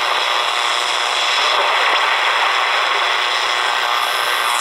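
Steady shortwave static and hiss from a Redsun RP300 portable receiver's speaker as it is tuned between stations on the 49-meter band. The owner puts this band noise down to FM stations from the city breaking through the receiver.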